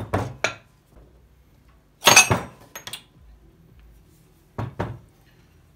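Metal parts of a LOMO Kinap 4A32 loudspeaker's magnet assembly clanking and clinking as they are handled and set down. A few knocks come at the start, the loudest clank with a short ring about two seconds in, and one more knock near the end.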